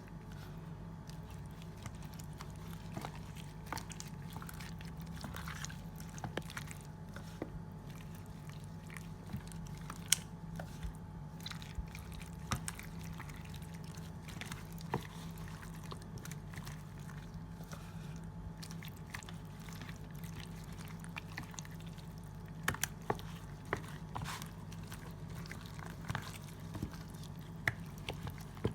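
Gloved hands rubbing a wet blended seasoning marinade into raw chicken pieces: soft squelching with scattered sticky clicks, over a steady low hum.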